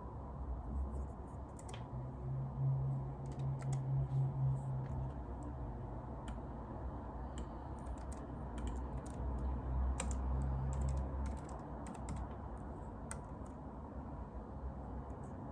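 Typing on a computer keyboard: irregular, scattered keystrokes over a low steady hum.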